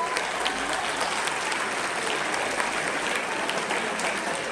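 A large crowd of students applauding, many hands clapping at once, swelling in at the start and then holding steady.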